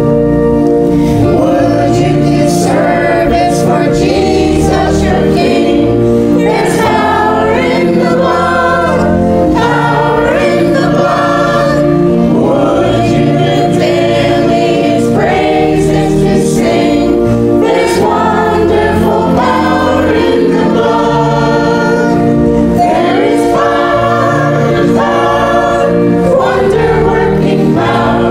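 Church choir singing an anthem with organ accompaniment.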